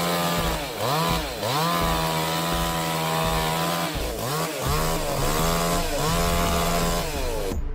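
Chainsaw engine running at high revs, its pitch dropping and climbing back several times: just after the start, about a second in, twice around four seconds in, and once more near the end.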